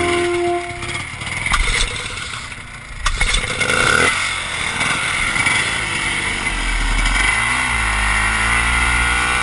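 Vintage Ski-Doo snowmobile's two-stroke engine revving as the sled pulls out of deep snow, then running under way with its pitch rising and wavering. There is a sharp knock about three seconds in.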